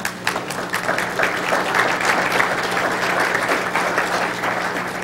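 Audience applauding: many hands clapping, swelling and then thinning out near the end.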